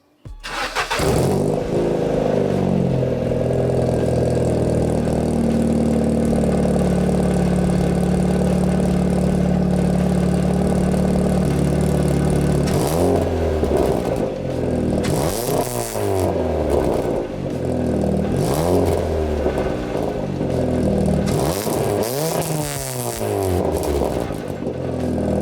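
Mk6 Ford Fiesta's 1.6-litre four-cylinder engine starting up through a freshly fitted Hornet cat-back race exhaust and settling into a steady idle. In the second half it is revved several times, each rev rising and falling back to idle.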